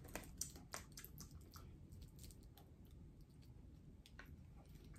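Faint chewing of crunchy Sweet Tarts candy, with scattered soft clicks, more of them in the first two seconds.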